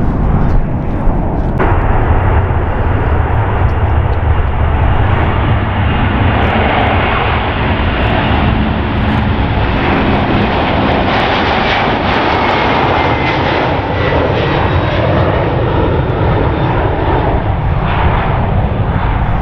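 Twin jet engines of a Boeing 767 airliner at takeoff power, a loud steady roar with a faint whine, as the aircraft rolls, lifts off and climbs away. In the first second and a half, before an abrupt change, another departing jet airliner climbs away.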